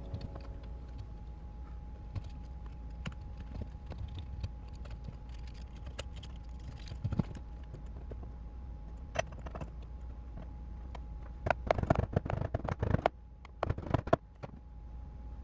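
Light clicks and clattering of small hard parts and tools being handled, busiest in a burst of rattling about twelve to fourteen seconds in, over a steady low hum.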